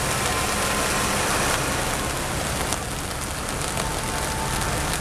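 Heavy rain pouring steadily onto a street and parked cars, an even hiss, with the low rumble of a car and then a tractor driving through standing water on the flooded road.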